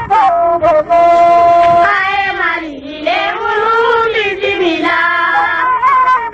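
Music: a melody of long held notes, with a stretch of sliding, wavering pitch in the middle.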